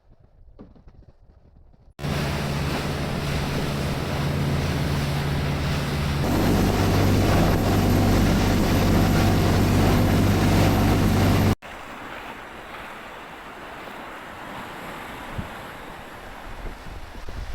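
Boat engine running steadily with wind and water noise, its hum stepping up about midway, then cutting off abruptly to quieter wind and surf.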